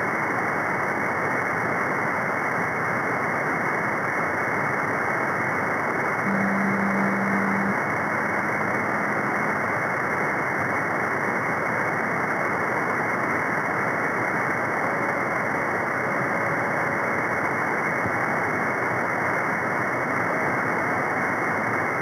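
Steady hiss of band noise and static from an 11-metre CB receiver on single sideband, cut off sharply by the receiver's narrow sideband filter. A short, low steady heterodyne tone comes in about six seconds in and fades a few seconds later.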